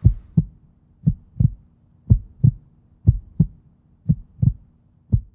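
Heartbeat sound effect: a steady lub-dub of dull low thumps, about one double beat a second.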